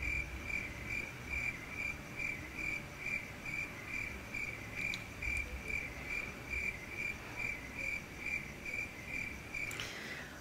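Cricket chirping in a steady rhythm, about two chirps a second, stopping abruptly near the end.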